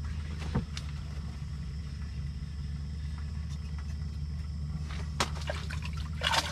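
A steady low mechanical hum, with a few sharp clicks and knocks as an ice-fishing rod and reel are handled to bring up a small crappie; a quick cluster of clicks near the end.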